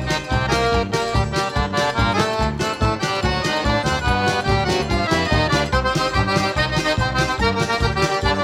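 Instrumental passage of a forró song, an accordion playing the melody over a steady, driving beat.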